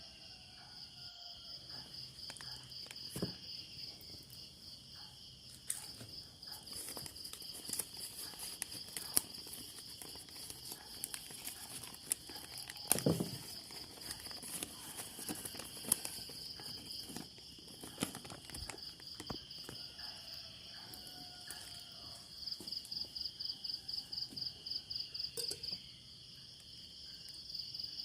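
Crickets chirping in a steady high trill, getting louder and more sharply pulsed for a few seconds near the end, with scattered faint clicks and knocks.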